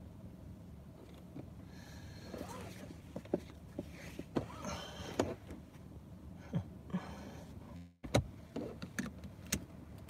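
Low steady rumble inside a car stopped in traffic, with faint voices calling out in the distance. Several sharp clicks and knocks of a phone being handled, and the sound cuts out briefly about eight seconds in.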